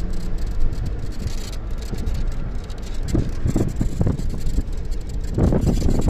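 A running vehicle with wind rumbling and buffeting on the microphone, gusting harder about three seconds in and again near the end.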